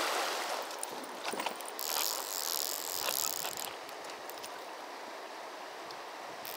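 Fly reel drag buzzing as a hooked trout pulls line off. There are a few clicks, then a buzz of about two seconds, and a second buzz starts near the end, over the faint rush of the river.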